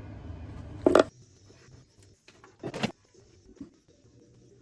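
A steady low hum stops with a sharp click about a second in. Faint scattered clicks and one louder knock follow a little before the three-second mark: small handling sounds of work on a studio monitor's wiring.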